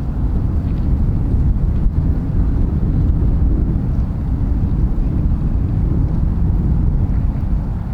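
Wind buffeting the microphone: a steady, low rumble that swells and dips.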